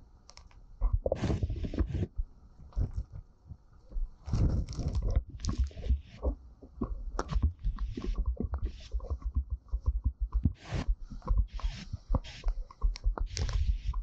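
Gusty tropical-storm wind buffeting the microphone in uneven rumbling bursts, with many short sharp taps from rain striking the camera.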